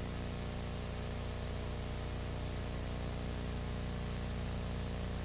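Steady hiss with a low electrical hum under it, unchanging throughout: the background noise of the recording.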